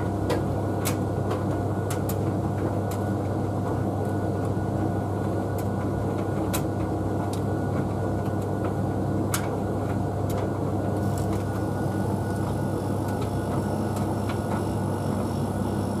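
Tumble dryers running with their drums turning a load of laundry: a steady hum with scattered sharp clicks. A faint high whine comes in about two-thirds of the way through.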